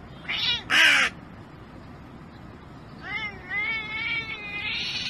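A cat and a hooded crow calling back and forth. Two short loud calls come near the start, about half a second apart, then a longer wavering call runs from about three seconds in.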